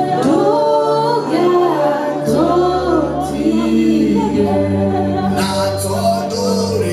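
Gospel singing over sustained keyboard-like chords, with several voices held together.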